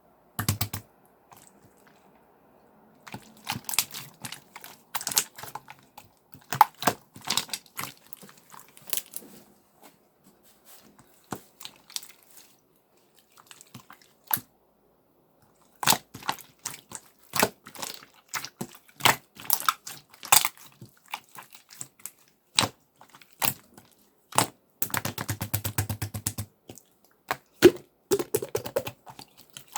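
Blue clear slime being pressed, stretched and poked by hand, giving off irregular sharp clicks and wet pops, with a quick run of small crackles near the end.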